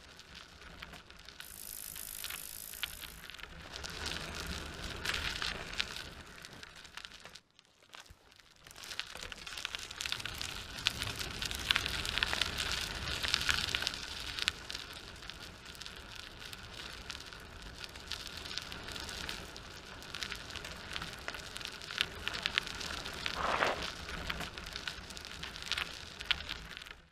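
Rushing, crackling flight noise from an FPV quadcopter, with its motors and wind on the onboard camera's microphone. The noise drops out abruptly about seven and a half seconds in, then builds up again.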